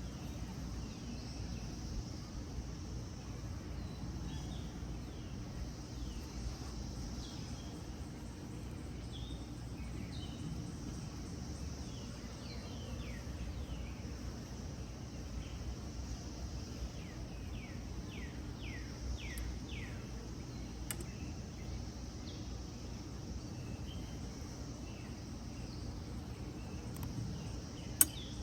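Outdoor ambience: a steady insect chorus with scattered bird chirps, including a quick run of falling chirps past the middle. A single sharp click comes near the end.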